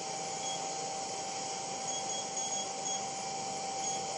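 Southwest Industries TRAK LPM vertical machining center powered up and running: a steady hum of fans and drives with a steady mid-pitched whine and faint higher tones that come and go.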